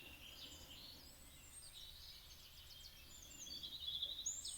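Faint birdsong: small birds chirping and trilling, with short whistled glides, over a soft low background noise. The birds grow a little louder near the end.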